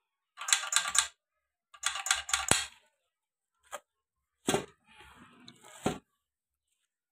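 Metal clinking and rattling from the tractor clutch pressure plate's release fingers, pins and wire locks as they are handled and fitted. There are two quick runs of rattling clicks, a few single clinks, then a short scrape that ends in a knock.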